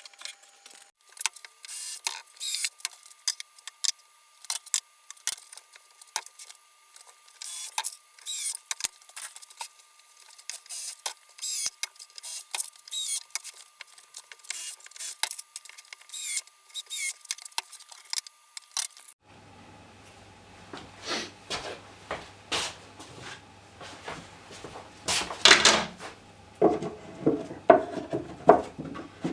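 Many quick, light metallic clinks and rattles of hardware being handled. About 19 seconds in the sound changes abruptly to louder knocks and clanks of wood and metal over a steady low hum, loudest near the end.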